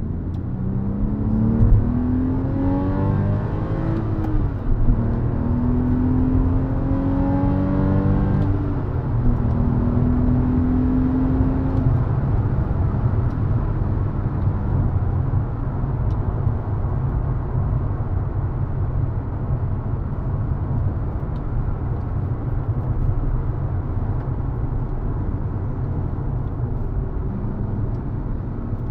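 Porsche 911 (997) Carrera 4's flat-six engine heard from inside the cabin, pulling up through the gears of its manual gearbox: the engine note climbs and drops back at each upshift over the first twelve seconds. It then settles into steady cruising, with a low engine and road rumble.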